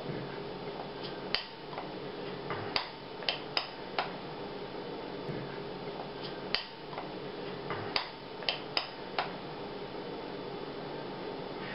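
Metal spoon clinking against a glass bowl as thick paste is scooped and scraped off it: about ten sharp clicks in two bunches, over a steady low room hum.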